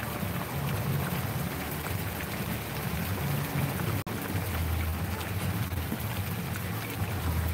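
Wind buffeting the microphone in uneven low gusts over a steady hiss of splashing water, with the sound cutting out for an instant about four seconds in.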